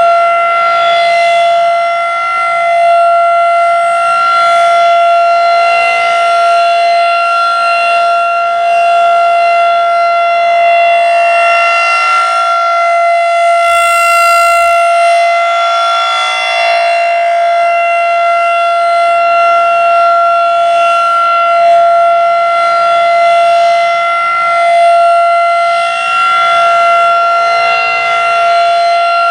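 Federal Signal 2001-SRN rotating electromechanical outdoor warning siren sounding its steady Alert tone at one pitch. Its loudness swells and fades every few seconds as the horn turns.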